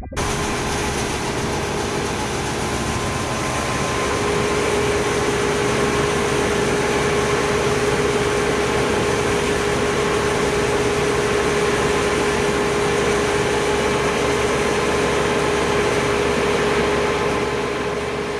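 Heavy harvest machinery running steadily: a diesel engine with a steady whine that comes in a few seconds in and holds.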